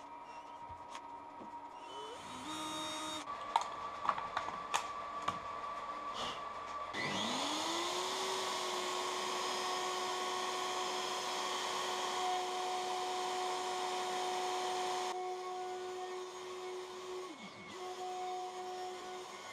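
A few sharp knocks, then a handheld router spins up about seven seconds in to a steady high whine. It cuts blade slots in plywood along a template with a loud rushing noise for about eight seconds, then runs on more quietly.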